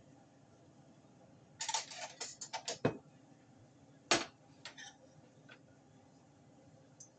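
A spoon clinking and knocking against a bowl: a quick run of clicks about a second and a half in, one louder knock about four seconds in, then a few faint ticks.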